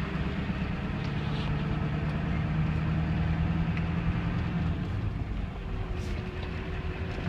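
A vehicle's engine running and its tyres rumbling on a dirt road, heard from inside the cab. The engine note holds steady, then eases off about five seconds in.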